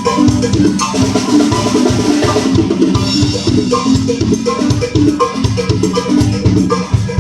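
Music with a steady drum-kit beat and a moving bass line, played loud.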